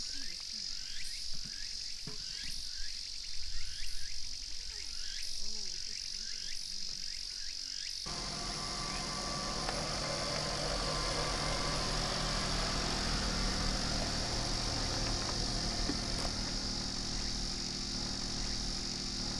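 Insects drone steadily at a high pitch, with a short rising chirp repeating about every half second through the first part. About eight seconds in, the sound cuts to a fuller background with a low rumble underneath, and the same insect drone carries on.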